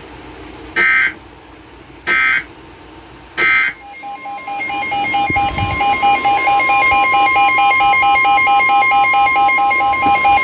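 Emergency Alert System SAME header: three short screeching bursts of digital data, about a second and a half apart. About four seconds in, the steady two-tone EAS attention signal starts and swells louder over its first couple of seconds, marking the start of a new alert broadcast.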